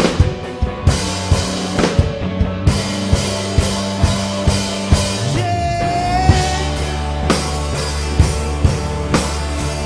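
Rock band playing an instrumental passage: a drum kit keeps a steady beat of about two hits a second under sustained bass notes, with a held, slightly rising lead note about halfway through.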